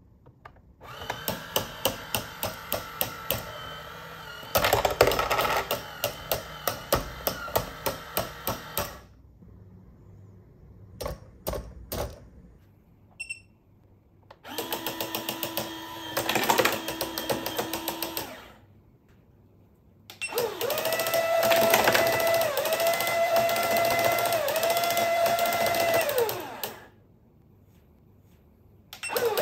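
Toy football coin bank running from a bench DC power supply at raised voltage, in several bursts: its motor mechanism clatters with rapid, even clicks, and its electronic sound chip gives steady beeping tones.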